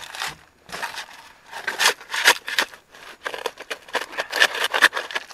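Steel pointed shovel digging into loose red lava-rock gravel and soil: a run of short crunching scrapes, coming thicker and faster in the second half.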